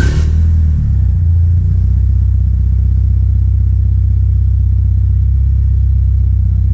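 Mitsubishi Lancer Evolution VI Tommi Mäkinen Edition's turbocharged 2.0-litre four-cylinder idling, heard at the tailpipe just after start-up. The idle wavers for about the first second and a half, then settles into a steady low idle.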